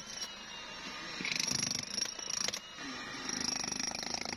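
A power tool running in short spells, a high steady whine with a buzz: it stops, runs again for about a second from just over a second in, and starts once more after about three seconds.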